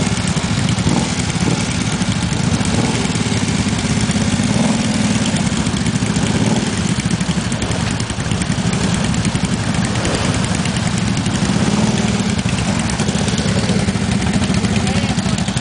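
ATV engines running at a steady idle close by, with no hard revving.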